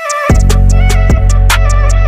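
Background music with a steady beat, heavy bass and a melodic lead.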